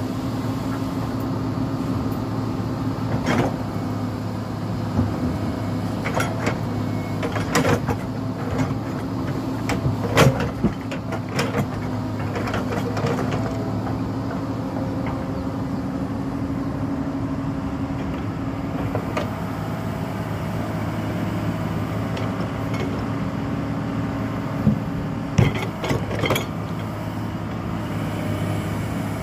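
Tracked hydraulic excavator's diesel engine running steadily under load while it digs out a road shoulder. Sharp knocks and clanks, bunched in the first half and again near the end, come from the bucket and boom striking soil and stones.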